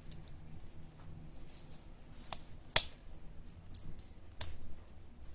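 Plastic parts of a Bandai Digimon Frontier Beetlemon transforming figure being bent and turned by hand: scattered light clicks and handling rustle, with one sharp snap a little before the middle.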